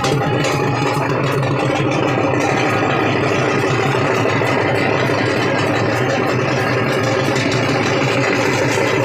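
A group of dhol drums played together in a fast, continuous roll, a dense steady rumble with no separate beats standing out.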